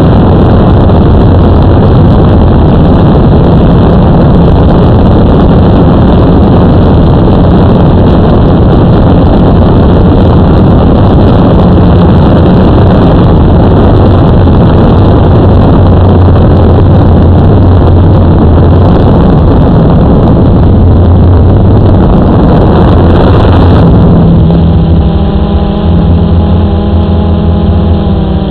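Blade 350 QX3 quadcopter's motors and propellers heard from its onboard camera: a loud, steady buzzing drone. About 24 s in, the rushing noise eases and a clearer whirring tone comes through, wavering in pitch near the end as the throttle changes.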